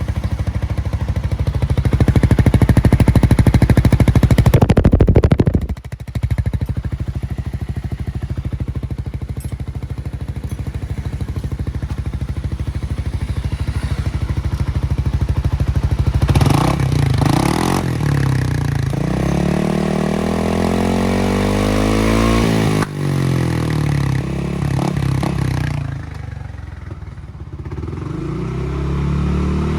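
Suzuki Burgman 400 maxi-scooter's single-cylinder engine running through an aftermarket Yoshimura-style 17-inch exhaust with a kevlar end cap. It runs steadily and dips briefly about five seconds in. From about halfway it is revved up and down several times, falls back lower near the end, then rises again.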